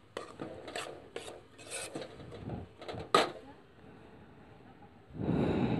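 Metal spatula scraping and stirring roasting mustard oil cake, oiled with coconut oil, in a metal pan, in irregular strokes with one sharp scrape about three seconds in. The oil cake must be stirred without stopping or it sticks and burns. A brief pause follows, then a louder rubbing noise near the end.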